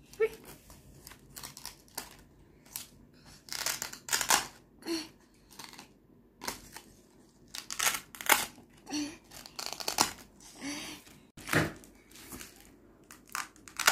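Small laminated cards being handled, peeled off and pressed onto the pages of a child's busy book: a dozen or so short, scratchy rips and taps at irregular intervals.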